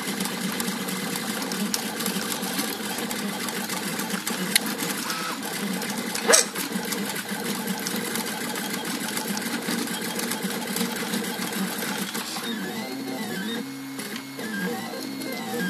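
3D printer's stepper motors buzzing and whining through rapid changes of pitch as the print head moves. From about twelve seconds in, the motors run in repeated rising-and-falling sweeps. A single sharp click about six seconds in.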